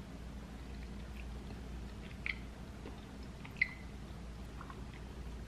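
Faint chewing of a gummy vitamin, with two small mouth clicks about a second apart midway.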